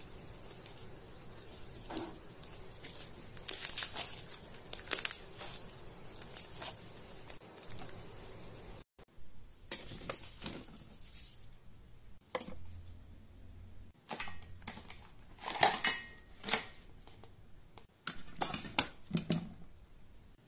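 Hands squeezing and kneading blue slime mixed with shaving foam, with a run of sharp crackles and pops. After a short break about nine seconds in, plastic bottles knock and clatter as a hand rummages in a plastic basket and picks out a can of shaving foam.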